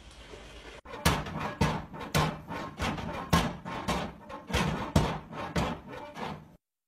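A run of sharp knocks and thumps, irregular at about two a second, starting about a second in and cutting off suddenly near the end.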